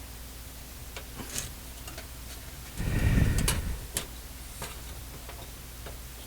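Small clicks and taps of tools working a tight, pressed-in part off the shaft of a 1950s thermometer's bimetal spring assembly, with one louder, noisier stretch about a second long near the middle. A steady low hum runs underneath.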